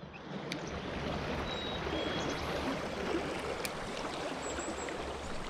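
River current rushing steadily over a riffle, an even close wash of water with a few faint ticks.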